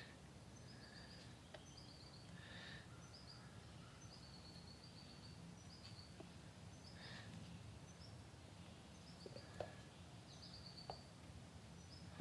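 Quiet background with a bird chirping over and over: short high chirps about once a second over a low steady hum, with a couple of faint light ticks near the end.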